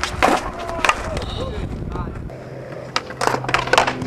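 Skateboard on concrete: sharp clacks and knocks of the deck popping and landing, several quick ones together near the end, with the wheels rolling in between.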